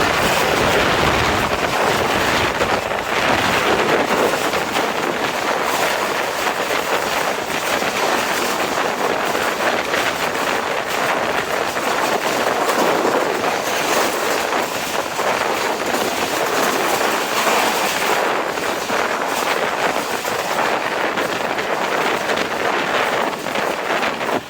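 Moving passenger train: a steady running noise of the coaches on the track, with wind buffeting the microphone.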